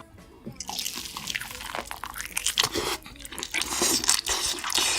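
Close-miked eating: crunching bites and wet, smacking chewing of food, a dense irregular run of crackles and clicks.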